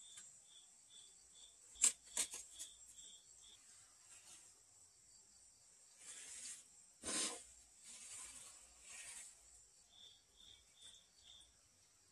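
Mason's trowel working mortar and bricks: sharp taps about two seconds in, then several short scrapes, the loudest about seven seconds in. An insect chirps at an even rate of about three chirps a second at the start and again near the end.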